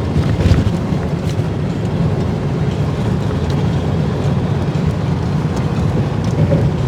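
Tow truck driving through drifted snow, heard from inside the cab: a steady low rumble of engine and tyres, with a few faint ticks.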